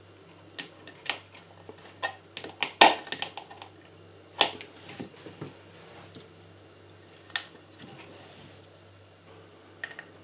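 Sharp clicks and knocks of a humidifier's plastic housing and hand tools such as pliers being handled and set down during reassembly. There is a quick cluster of clicks about two to three and a half seconds in, the loudest near three seconds, then a few single clicks.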